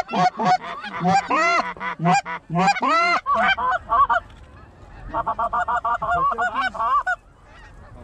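Goose honks, loud and close, in a quick string for the first three seconds or so. After a short lull comes a fast, even run of short clucks.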